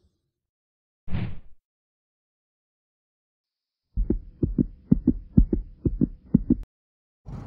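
Edited intro sound effects: a short swish about a second in, then after a pause a fast run of low thumps, about four or five a second in a heartbeat-like rhythm, that stops suddenly after nearly three seconds.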